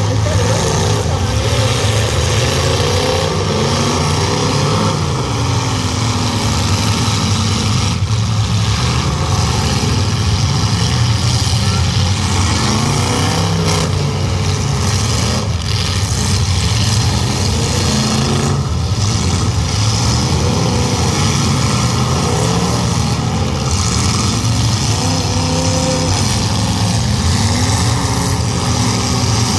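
Several demolition derby cars' engines running at once, loud and continuous, their pitch rising and falling as the drivers rev them.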